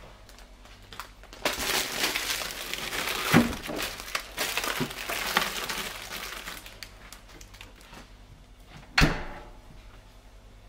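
Rustling and crinkling of grocery packaging being handled and unpacked, with items set down on a hard surface: a sharp knock about three seconds in and a louder one near the end.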